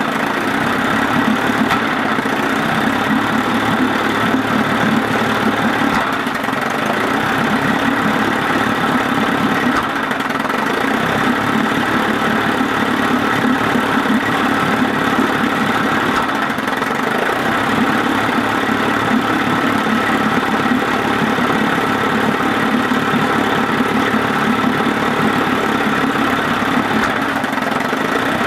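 1956 Evinrude 15 hp two-cylinder two-stroke outboard idling cold on choke, running steadily with a couple of brief dips. It is idling in the cold state in which it now and then gives a loud clunk and nearly stalls.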